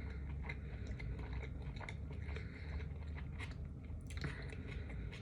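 A person chewing a mouthful of sub sandwich close to the microphone, a steady run of small mouth clicks and smacks.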